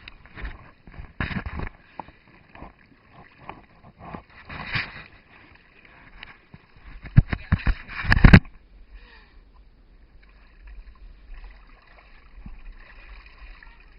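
Water splashing and sloshing in irregular bursts, loudest about seven to eight seconds in, then cutting off abruptly to a fainter steady wash of water.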